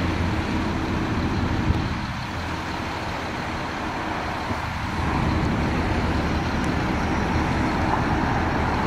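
Diesel engine of a truck-mounted 75-ton crane running steadily while lifting, dipping slightly for a few seconds and getting louder again about five seconds in, over city traffic noise.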